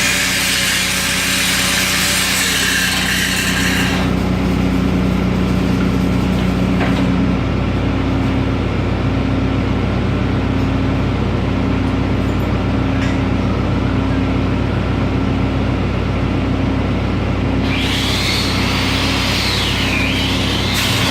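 Engine-driven welding machine running steadily. The hiss and crackle of a 6010 electrode arc laying a root bead fills the first few seconds, stops abruptly, and starts again near the end.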